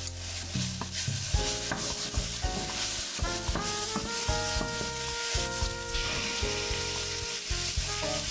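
Diced onion and red pepper sizzling in a stainless steel frying pan while being stirred with a wooden spoon, the sizzle growing stronger about six seconds in. Background music with a bass line plays throughout.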